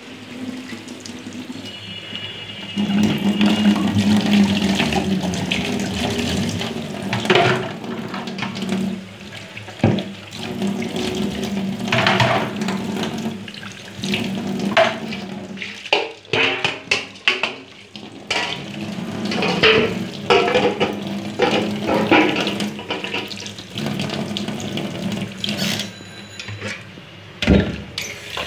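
Tap water running into a stainless-steel sink, louder from about three seconds in, while a metal pot is rinsed under it. Repeated knocks and clatters of the pot against the sink come through the splashing.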